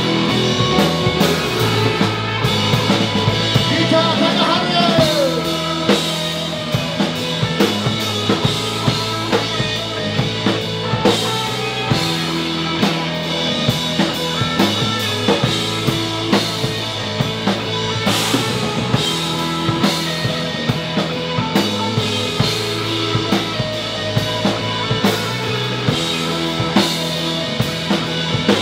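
Rock band playing live: electric guitars, electric bass and a drum kit, driven by a steady drum beat.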